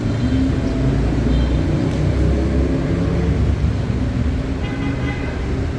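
Street traffic: the low engine rumble of a motor vehicle running close by, heaviest in the middle of the stretch, over a steady din of road traffic.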